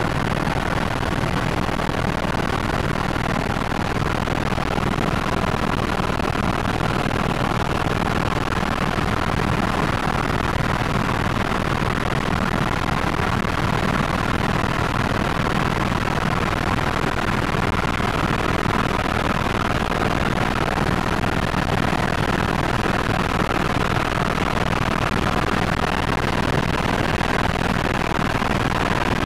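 Helicopter in flight, heard from inside the cabin: a steady, loud drone of engine and rotor noise that does not change.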